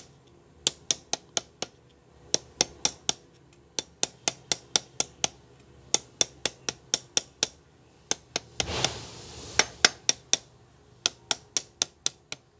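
Small hammer tapping a freshly glued clutch lining all around onto the clutch plate of a sewing machine's clutch motor, seating it flat: many sharp, light taps, about two to four a second, in runs with brief pauses. A short rustle of handling comes about three-quarters of the way through.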